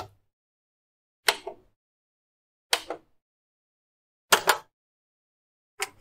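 Buttons and switches on electronic devices being pushed, one after another: sharp plastic clicks about every one and a half seconds, several of them quick double clicks, with silence between.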